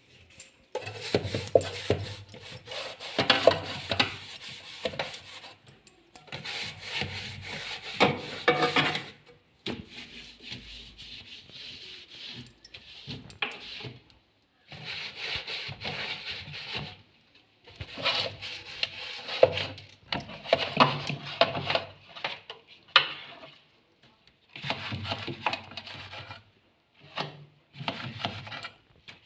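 Rubbing and scraping in stretches of a few seconds, broken by short pauses and a few sharp knocks, from a refrigerator being cleaned by hand and its parts handled.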